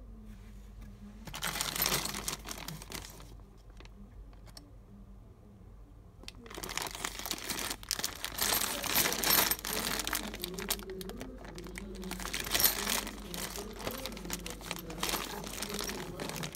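Clear plastic bag of key blanks crinkling and rustling as it is handled, with the metal keys inside shifting; a short burst about a second and a half in, then continuous handling from about six seconds in.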